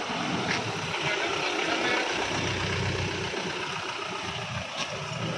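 Steady street ambience: vehicle engines running, with faint voices in the background.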